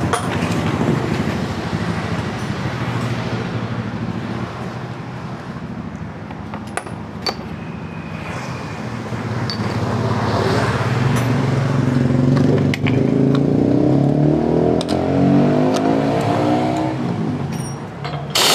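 A vehicle engine running, growing louder in the second half and rising in pitch as it revs up, with scattered light metallic clicks.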